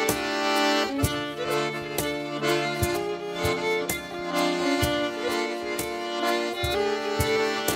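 Lively Breton folk dance tune played on melody instruments, with sharp beats roughly once a second.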